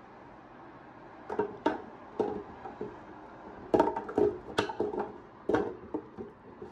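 Bamboo bin of a sliding bin organizer knocking and rattling against its black metal wire frame as it is moved and slid along the rails. The irregular run of knocks starts about a second in.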